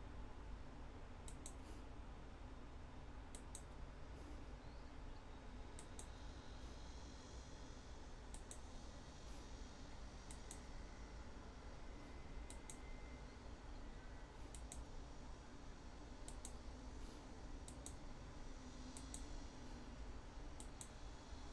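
Quiet computer clicks, often in quick pairs, coming every second or two as a document is scrolled, over a faint steady hum.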